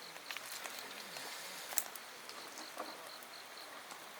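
Faint outdoor ambience with an insect chirping in a steady high rhythm, about three to four chirps a second, and a few light scattered clicks and taps.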